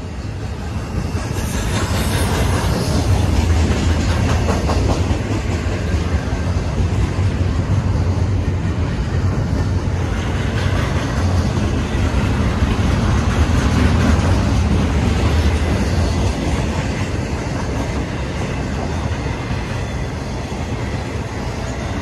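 Double-stack intermodal freight train's container well cars rolling past: a steady rumble of steel wheels on the rails, with some clicking of wheels over the rail, growing louder over the first couple of seconds.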